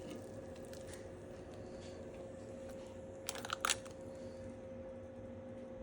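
Quiet kitchen room tone with a steady faint hum, and a brief scrape or clatter about three and a half seconds in.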